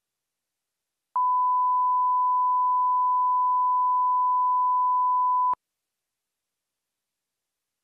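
A steady 1 kHz line-up test tone, the reference tone that goes with broadcast colour bars. It starts about a second in and cuts off suddenly about four and a half seconds later.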